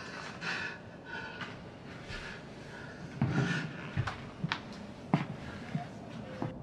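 A man breathing heavily in distress, with a string of breathy exhalations and gasps. Several sharp knocks or clicks sound in the second half, the loudest about five seconds in.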